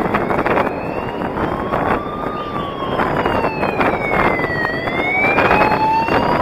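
A siren wailing slowly up and down: it rises, falls to a low point about two-thirds of the way through, then rises again. Underneath runs a steady rush of wind and road noise on the microphone.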